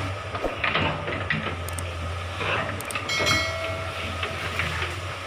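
Komatsu hydraulic excavator's diesel engine running steadily at a distance while it works through brush, with scattered knocks and cracks. A brief high ringing chime about three seconds in.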